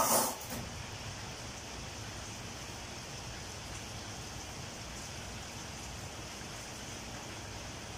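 Steady sizzling hiss of chicken frying in a pan on a gas stove, with a short, loud burst of noise right at the start.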